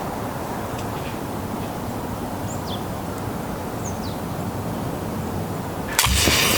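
Steady outdoor background rush with two short, faint, falling bird whistles in the middle, then a sudden loud noisy rustle-like burst about six seconds in.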